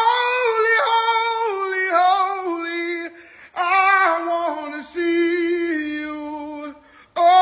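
A high solo voice singing a worship song with no instruments, holding long notes in three phrases with short breaths between them.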